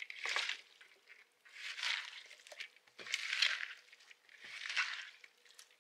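Hand mixing and squeezing shredded red cabbage and carrot in a bowl for a ferment: a crunchy, wet rustle in four strokes, about a second and a half apart.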